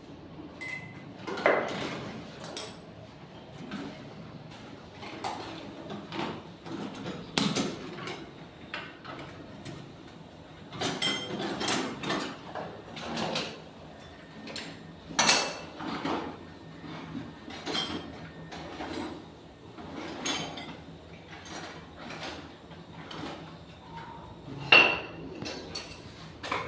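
Irregular clinks, taps and scraping knocks of hard objects being handled, about one every second or two, some ringing briefly.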